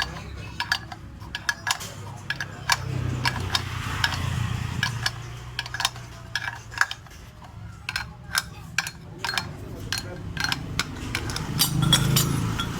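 Irregular metallic clicks and clinks of hand tools and a bearing puller being worked on a scooter's CVT pulley housing to draw out a bearing part.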